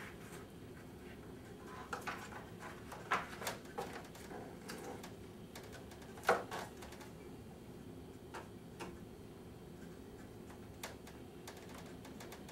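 Faint scattered clicks and light knocks of a window jamb liner being handled and fastened into a wooden window frame with a hand screwdriver, with a cluster of taps about two to three seconds in and one louder knock about six seconds in.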